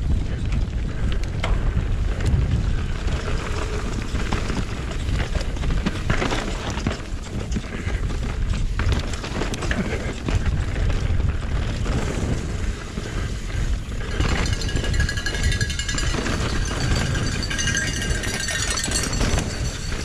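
Mountain bike ridden fast down a rough trail: a steady rush of wind on the action camera's microphone, with the rattle and knocks of the bike over rough ground. About three-quarters of the way through, a high buzzing whine joins in.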